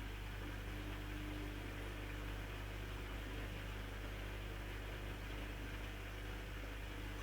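Privileg 9515 Sensation washing machine on its 900 rpm spin cycle, running with a steady hum.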